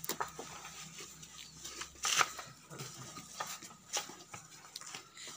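Irregular soft scuffs and swishes from roller-painting work on a concrete roof: rollers spreading damp-proof primer, with shuffling bare feet. The loudest strokes come about two and four seconds in.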